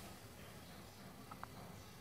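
Near silence: faint room tone with a tiny tick about one and a half seconds in.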